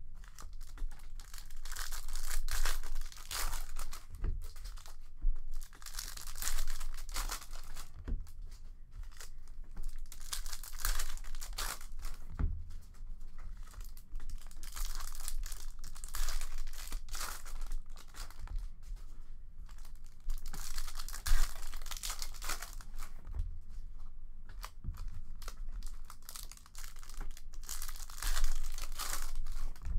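Foil trading-card pack wrappers being torn open and crinkled by hand, in repeated rustling bursts.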